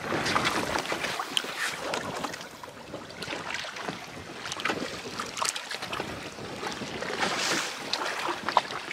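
Wind on the microphone and choppy lake water sloshing against the boat, with small splashes from a smallmouth bass being held at the surface and let go over the side.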